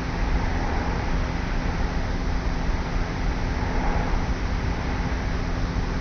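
Light, regular snoring and sleep breathing of a young woman asleep on her back, picked up by a tape recorder lying on her pillow. A faint breath swells about four seconds in, under steady tape hiss and a low hum.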